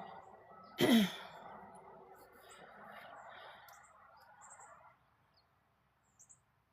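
A person's voiced sigh about a second in, its pitch falling sharply, over a faint steady background hum that fades away.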